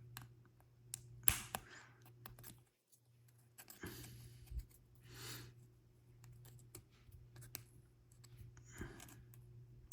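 Faint, scattered clicks and soft rustles of small plastic model-car parts being handled, with a few sharper clicks among them.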